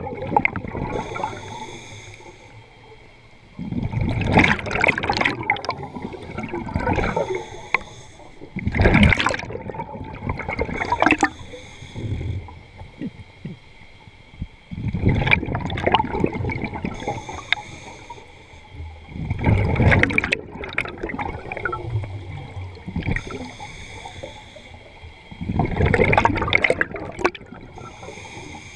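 Scuba diver breathing underwater through a regulator: each exhalation sends out a burst of bubbles gurgling past, recurring every few seconds, with quieter stretches between breaths.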